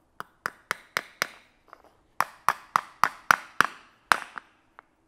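A hammer tapping wire nails into a small wooden block, in two quick runs of light taps, about four a second, each with a short metallic ring.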